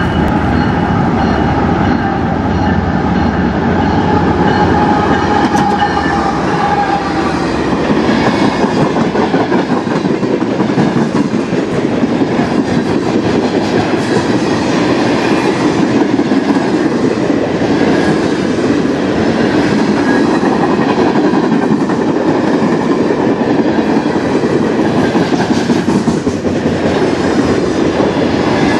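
Diesel freight train passing close by: the lead locomotive goes past in the first several seconds with a steady engine tone, then the freight cars roll past with a continuous rumble of steel wheels on the rails.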